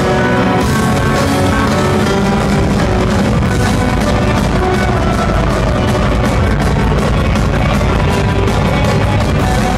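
Power metal band playing live and loud: distorted electric guitars over a drum kit with steady cymbal hits.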